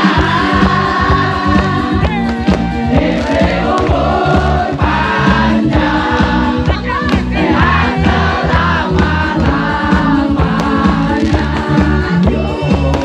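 A song with several voices singing over a steady beat.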